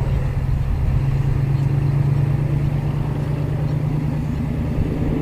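SRT Alsthom diesel-electric locomotive passing at the head of a passenger train. Its engine runs with a steady low drone over a rumble.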